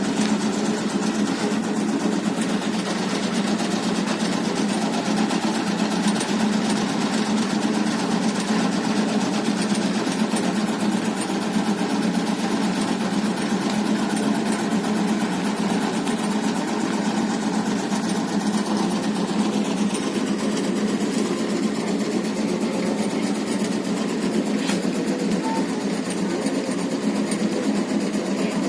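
Motorised tobacco-leaf cutting machine running steadily: an even engine hum with a fast, regular mechanical rhythm that does not change.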